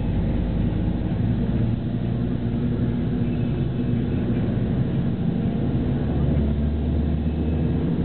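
Bus diesel engine running and cabin noise inside a moving PKS bus, steady throughout; the engine note gets deeper and stronger about six seconds in.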